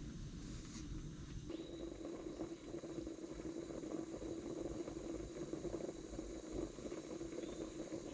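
Compact camping gas stove burning under an aluminium mess tin: the steady hiss and rush of the flame, fuller and louder from about a second and a half in.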